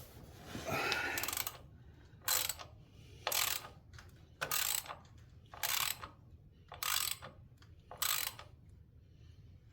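Socket ratchet wrench backing out a loosened bolt: a short rasp of ratcheting about a second in, then six even bursts of pawl clicking, one every second or so, as the handle is swung back and forth.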